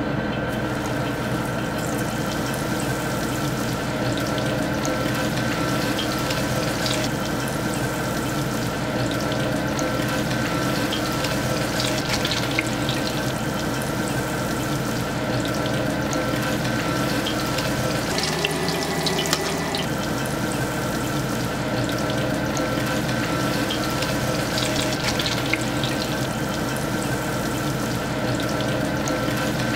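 Panko-breaded tilapia fillets frying in hot vegetable oil: a steady sizzle dotted with small crackling pops, which briefly changes character for a couple of seconds about two-thirds of the way through.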